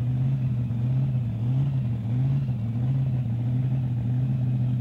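Mud-drag buggy's engine idling steadily, with a couple of slight rises in pitch about two seconds in.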